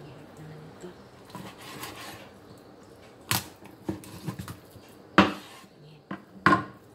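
Kitchen knife cutting through raw chicken breast and knocking on the cutting board, a soft scraping at first and then about six sharp knocks in the second half, the loudest a little after five seconds in.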